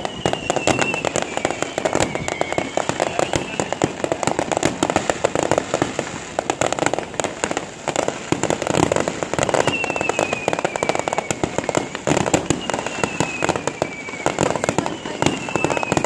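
Aerial fireworks bursting overhead: rapid, continuous bangs and crackling with no pause. Several long whistles fall in pitch, one at the start and a few more in the second half.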